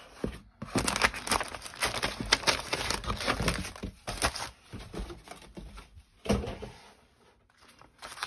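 Paper and cardboard rustling and crinkling as the sheets in an opened craft-kit box are handled and lifted out, dying down to faint handling about two-thirds of the way through.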